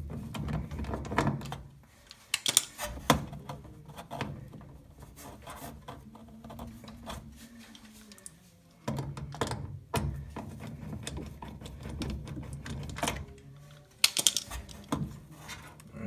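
Scattered clicks, taps and knocks of a screwdriver working a screw out and hands moving plastic parts and wiring in the base of a washing machine, with low handling rumble between them.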